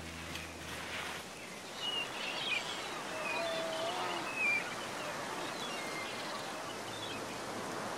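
Waterfall on a salmon river rushing steadily, with gulls giving short, high calls over it several times, mostly between about two and five seconds in.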